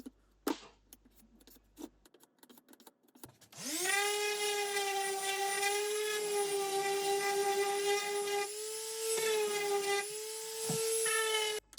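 A few faint clicks, then a small electric power tool's motor spins up quickly to a steady high whine. It runs at an even speed for about eight seconds and cuts off abruptly near the end.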